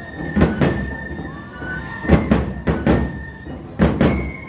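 Nebuta festival hayashi: heavy taiko drum strokes in quick pairs, four pairs, under Japanese transverse flutes (fue) playing a high, held melody that slides between notes.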